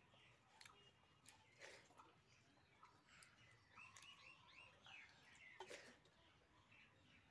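Near silence with faint bird chirps, including a quick run of about five short chirps around four seconds in, and a few soft clicks of fingers against a steel plate while rice is eaten by hand.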